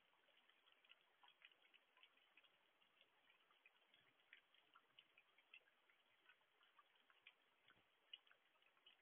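Faint rain: irregular ticking of raindrops striking the outdoor security camera, over a soft hiss.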